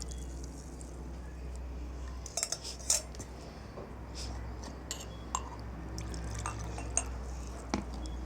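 Kitchenware clinking and knocking, with some liquid, as a boiled dried-hyssop infusion is strained: a scatter of separate sharp clinks from about two seconds in.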